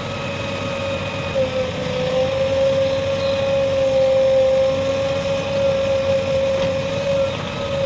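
JCB 3DX Plus backhoe loader's diesel engine running steadily with a high, even whine.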